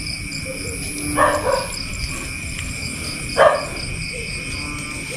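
A dog barks twice, about two seconds apart, over a steady high-pitched insect drone.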